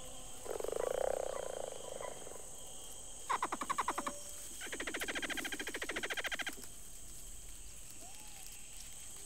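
Forest ambience: a steady high insect chorus with frog-like croaking calls over it. A buzzy call comes first, then a short rattling trill about three seconds in, then a longer fast trill of about two seconds.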